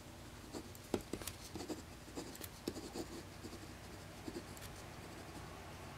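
Handwriting with a pen on a sheet of paper: irregular short scratches and taps as words are written out.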